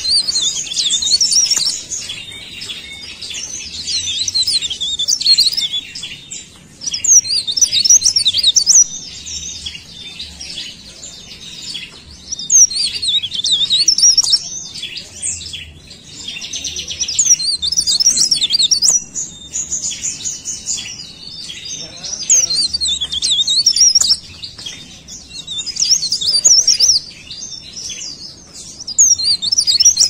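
Cikrak daun (mountain leaf warbler) singing: phrases of quick, high, twittering notes, each a second or two long, repeated every few seconds.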